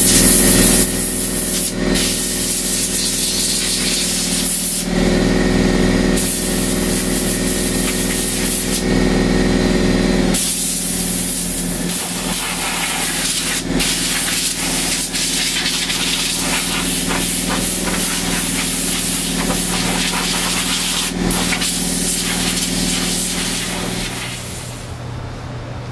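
Compressed air from a shop compressor's blow gun blasting dust out of a MacBook Pro's heat sinks and fans, in several long blasts of hissing air, the last running on for over ten seconds. A steady hum runs underneath.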